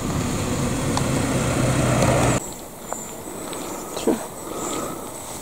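A vehicle engine running steadily with a low hum, cut off abruptly about halfway through. After it, quieter outdoor ambience with a few faint knocks.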